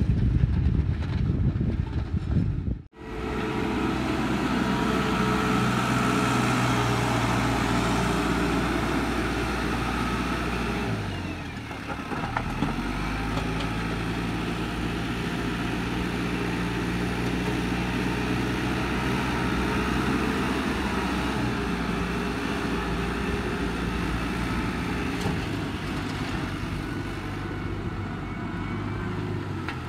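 Case IH tractor's diesel engine running steadily under load as it drags a rear-mounted box blade over dry ground. The first three seconds are a low rumble that cuts off abruptly, and the engine note dips briefly about eleven seconds in.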